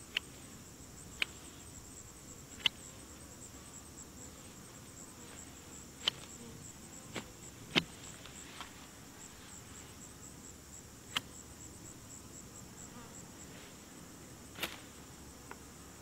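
Hand shears snipping through weeds, about ten short, sharp clicks at irregular intervals. Behind them runs a steady, high, pulsing chirp of insects.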